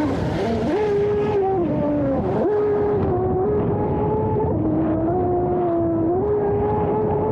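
RC F1 outboard racing boat's brushless electric motor whining as the boat runs across the water, heard from a camera mounted on the hull. The pitch steps up and down several times with the throttle, over a constant rush of water against the hull.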